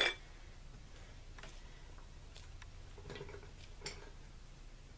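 Faint, scattered light clicks and taps of metal transmission parts being handled, with a brighter clink right at the start.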